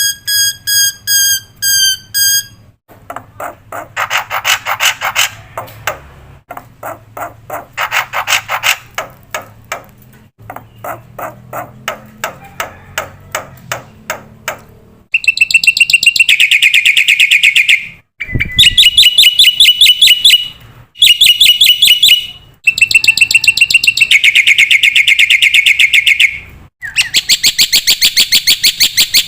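Black-winged myna (jalak putih) calling continuously: rapid repeated notes with harsh rasping phrases in the first half, then from about halfway in, loud, high, fast trilled chatter in runs of a few seconds with short breaks.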